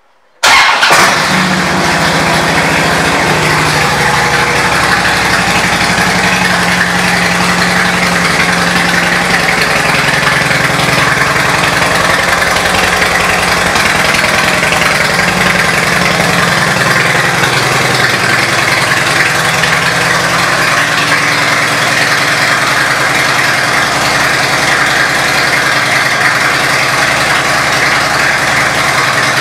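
2008 Harley-Davidson Street Glide's air-cooled Twin Cam 96 V-twin, fitted with aftermarket Python exhaust, starting about half a second in and then idling steadily. The idle eases down a little about ten seconds in as the engine settles.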